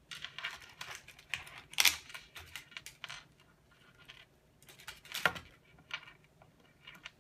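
Clear plastic toy packaging crinkling as small plastic pony figures are wiggled and pulled out of it, in short irregular rustles with two louder crackles, about two seconds in and about five seconds in.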